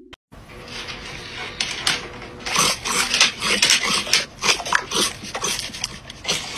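A black dog nosing and licking at a person's fingertips close to the microphone. It makes quick, irregular wet clicks and snuffles that grow busier from about two seconds in.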